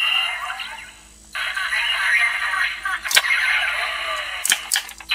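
Electronic sound effects and voice announcements played through the small speaker of a DX Drive Driver toy transformation belt, with a brief dip about a second in. Sharp plastic clicks come about three seconds in and twice more near the end as the belt is worked.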